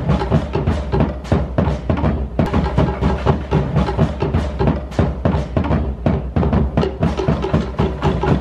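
Live Polynesian dance-show music dominated by rapid, driving drumming with sharp wood-block-like strokes over a steady low bass.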